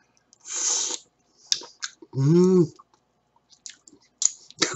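A man eating cooked swimming crab: a short sucking slurp as he draws meat from the shell, a few chewing clicks, and a hummed 'mmm' of enjoyment that rises and falls in pitch about two seconds in.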